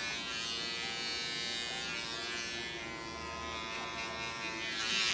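Small electric pet hair clipper running against a cat's fur, a steady buzz that cuts off abruptly near the end.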